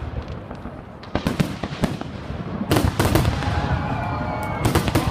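Fireworks display: shells bursting in quick clusters of sharp bangs, about a second in, again near three seconds, and near the end. Faint steady high tones join in from about three seconds in.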